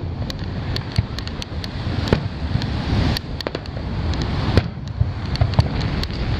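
Aerial fireworks shells bursting: sharp bangs about once a second, with smaller crackles in between, over a steady low rumble.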